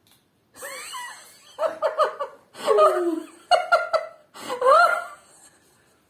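A young man laughing in about five separate bursts.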